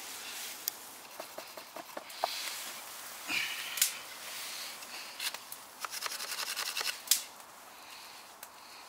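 Custom bushcraft knife working a dry stick: sharp clicks and short scrapes of the blade on the wood, with a quick run of ticks about six seconds in.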